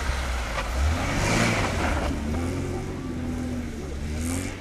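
Classic Lada saloon's engine revving as the car slides sideways on snow, its pitch rising and falling, with a burst of rushing noise about a second in.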